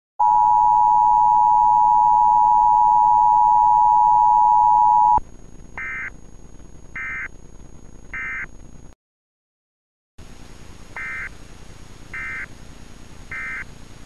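Emergency Alert System two-tone attention signal, a loud steady piercing dual tone held about five seconds and cut off abruptly. It is followed by three short warbling digital data bursts, then a second of silence and three more bursts.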